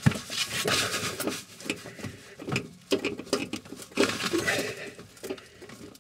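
Screwdriver clicking and scraping against a very tight oven-element screw in the oven's sheet-metal back panel. Irregular metallic clicks and scrapes as the tip slips and bites on the seized screw, which will not turn.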